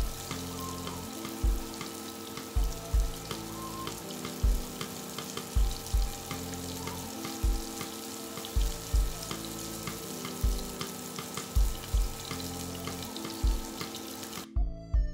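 Semolina-coated shrimp shallow-frying in oil in a pan: a steady sizzle full of small crackles and pops. Background music with a regular bass beat plays underneath, and the sizzle cuts off abruptly near the end.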